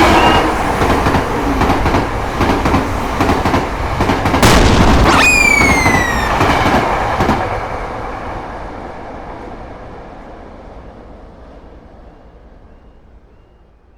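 Train passing at speed: a loud rumble with wheels clattering over the rail joints, and a high tone sliding down in pitch about five seconds in. The train noise then fades away gradually.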